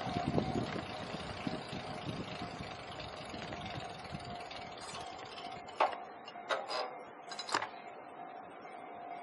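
Street traffic rumble heard from a bicycle, fading after about four seconds, over a steady two-tone electronic ringing that fits a Japanese level-crossing warning bell. A few short sharp clicks come between about six and seven and a half seconds in.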